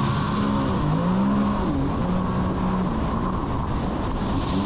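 Jet ski engine running at speed, its pitch dipping and rising a couple of times with the throttle, over the rush of water spray and wind.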